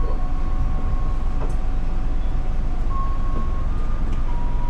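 KRL Commuterline electric commuter train running, a steady rumble with faint thin whining tones above it.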